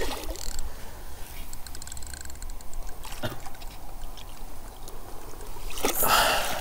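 Low wind rumble on the microphone with a few light clicks, then a brief splash of water near the end as the landing net goes in around a hooked wels catfish.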